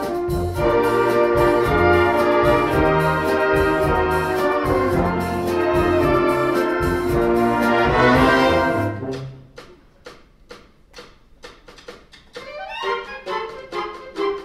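Concert wind band of brass and clarinets playing a loud, full passage that breaks off about nine seconds in to a soft passage of short, evenly spaced notes. These begin to swell again near the end.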